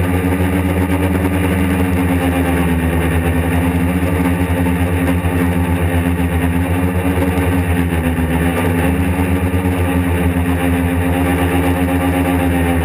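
Quadcopter's electric motors and propellers running with a steady, pitched drone, heard close up from on board the craft; the pitch drifts slightly, dipping briefly about eight seconds in as the motors adjust in flight.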